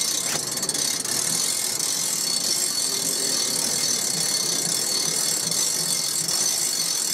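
Hand-cranked coin-press souvenir machine working as its large wheel is turned steadily, the gear mechanism grinding a coin flat into a souvenir medallion.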